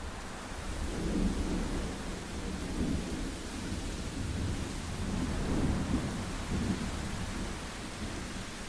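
Thunder rolling over steady rain: a low rumble swells about a second in and surges again a few times before easing near the end, under a constant hiss of falling rain.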